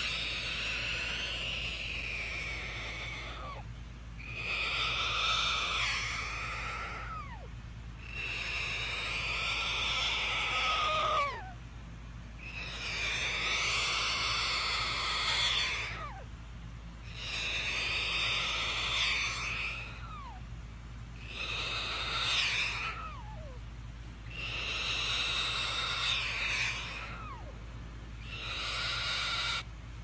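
Cockatoo hissing next to a person's ear: long drawn-out hisses of about three seconds each, repeated about eight times with short breaks between them, several ending in a quick falling whistle.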